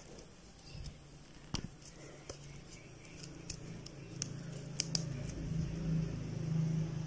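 Faint scattered clicks and rustles of a crochet hook working yarn into single crochet stitches, over a low steady hum that comes in about a second in.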